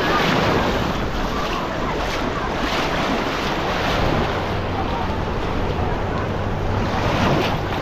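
Baltic Sea waves washing onto a sandy beach in a steady rush, with wind buffeting the microphone.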